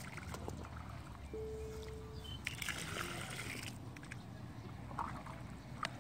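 Shallow muddy water sloshing and splashing under a child's feet and hands as he wades and scoops, with a longer splash around the middle.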